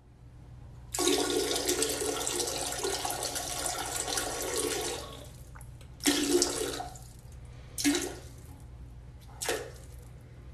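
Toilet flushing: a loud rush of water lasting about four seconds, then three short rushes, over a steady low hum.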